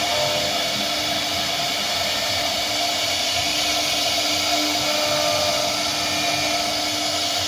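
CNC router spindle running steadily while cutting wood: a constant motor whine over an even hiss, without breaks.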